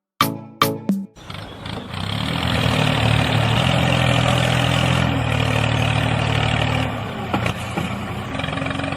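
A tractor engine starts and runs steadily, settling into a lower, even hum with a held tone after about seven seconds. A few short sharp sounds come in the first second.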